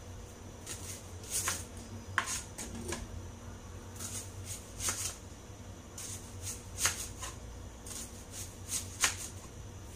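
Kitchen knife slicing a peeled white onion into rounds on a plastic cutting board: short, irregular cutting strokes, roughly two a second.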